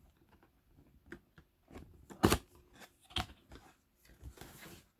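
Packaging of a DJI FPV controller box being opened and handled: scattered small clicks and taps, a sharp knock about two seconds in, another a second later, and a brief rustle near the end.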